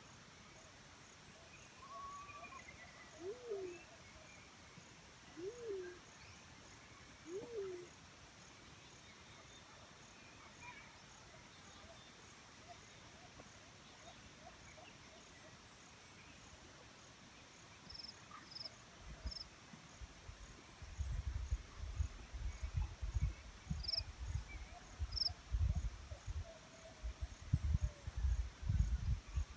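Black-chinned fruit dove giving three low hoots about two seconds apart, each rising then falling, over a steady insect chirring. In the second half, low rumbling buffets take over as the loudest sound.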